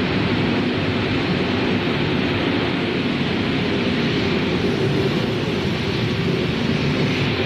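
Extruded corn-cereal production-line machinery running: a loud, steady mechanical noise with a low hum underneath.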